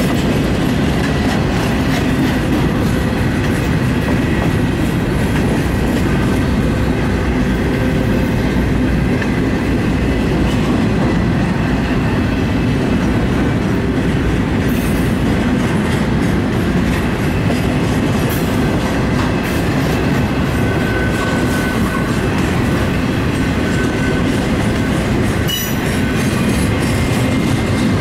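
Freight train of intermodal well cars rolling past at close range: a loud, steady rumble of wheels on rail with clacking over the joints and a faint, thin high squeal from the wheels.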